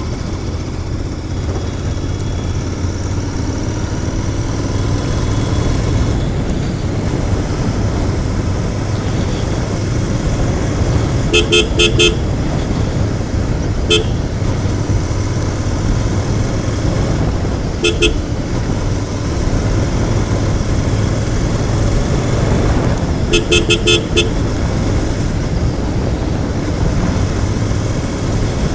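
Royal Enfield Continental GT 650's parallel-twin engine running steadily on the move through its stock exhaust, with road and wind rumble. A vehicle horn toots in quick runs of short beeps twice, with single beeps between.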